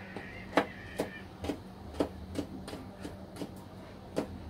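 Kitchen knife chopping garlic cloves on a plastic cutting board: a string of sharp, uneven taps, about two a second, some louder than others.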